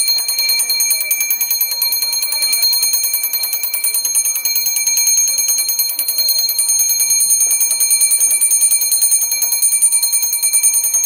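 Railway station's electric platform bell ringing continuously, a fast even rattle of strokes under a high steady ring, the warning that a train is approaching.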